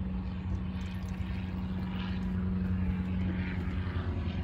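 Steady low drone of an aircraft engine running nearby, an even hum with no change in pitch.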